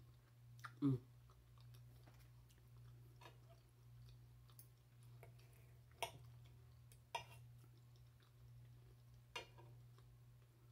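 Quiet chewing of a mouthful of green beans and potato close to the microphone, with a few sharp clicks of a knife and fork against the plate, the loudest about a second in. A low steady hum runs underneath.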